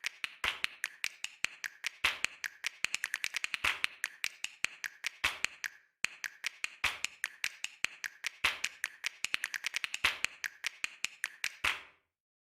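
A quick, irregular series of sharp clicks or taps in runs, over near silence, pausing briefly about halfway and again just before the end.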